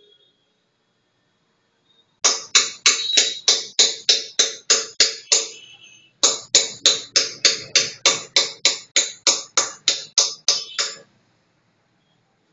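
Steady rhythmic tapping: sharp, evenly spaced strikes at about three and a half a second, in two runs with a brief break about six seconds in, stopping a little before the end.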